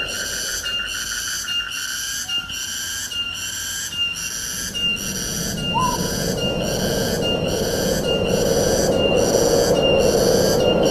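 Wind rushing through forest trees, swelling louder from about halfway through, under a high-pitched, evenly pulsing call that repeats about twice a second.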